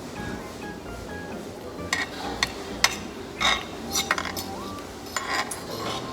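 Cutlery clinking against plates and bowls during a meal: about eight short sharp clinks, the loudest about three seconds in, over background music.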